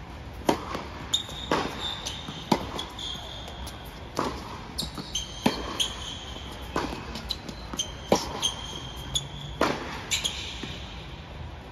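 Tennis serve and rally on an indoor hard court: sharp pops of racket strings striking the ball and the ball bouncing, about one every second or so, with short high squeaks of sneakers on the court in between.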